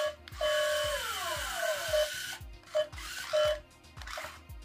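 Sillbird Wallrobot toy robot's small motors whir as its tracks drive it for about two seconds, while it plays electronic sound effects: several falling beeping tones, then a few short beeps. A steady music beat runs underneath.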